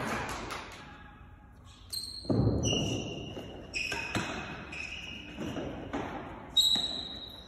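A real tennis rally: the solid ball struck by rackets and knocking off the court's floor and walls, about half a dozen sharp knocks from about two seconds in, echoing in the hall, some leaving a brief ringing tone.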